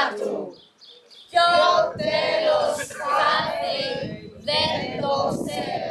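A group of adult voices, mostly women's, chanting a Greek verse text together in unison. They break off just after the start and come back in about a second and a half in.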